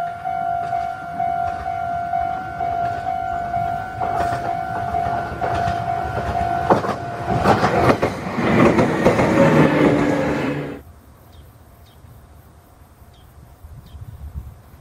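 A pulsing electronic warning tone runs until about seven seconds in. Then a red Meitetsu electric train passes close by, with wheel-on-rail noise and motor whine, loudest for a few seconds before it cuts off abruptly.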